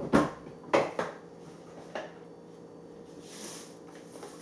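Kitchen dishes and utensils clattering: four sharp knocks in the first two seconds, the first two the loudest, then a soft brushing sound about three and a half seconds in.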